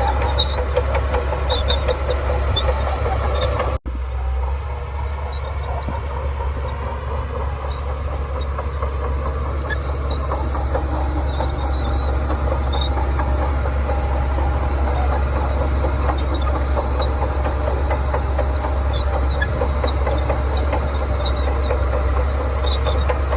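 Diesel engine of a Shantui DH17C2 bulldozer running steadily, with a brief break in the sound about four seconds in.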